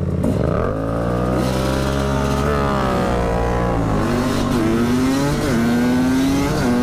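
Husqvarna 300 enduro motorcycle pulling away hard from a standing start. The engine note climbs, drops back at each upshift and climbs again several times, settling into a higher steady note near the end.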